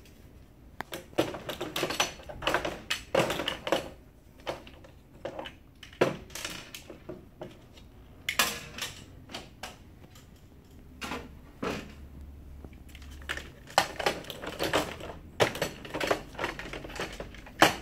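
Plastic and metal parts of a laser printer fuser assembly and its plastic outer guide being handled and fitted together: irregular clicks, knocks and rattles, coming in clusters.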